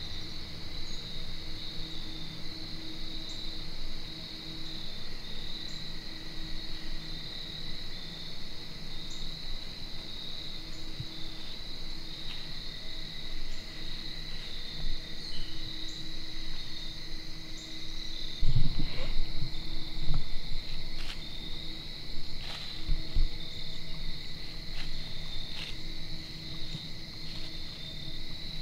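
Steady chorus of crickets and other insects, a high continuous trilling, with a few low thumps about two-thirds of the way through.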